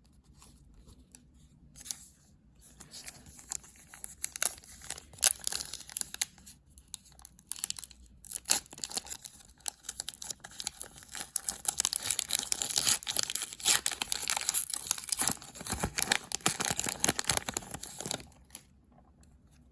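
Foil wrapper of a hockey trading-card pack being torn open and crinkled, a dense run of crackling and rustling that starts about two seconds in, is loudest near the end and stops suddenly.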